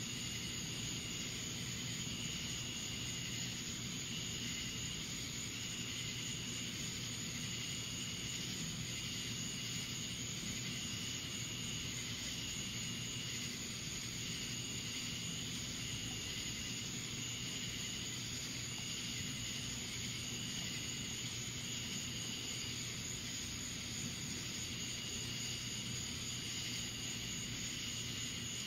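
Summer night chorus of insects: a steady high drone with a trilling call that pulses on and off at regular short intervals, over a steady low hum. No thunder stands out.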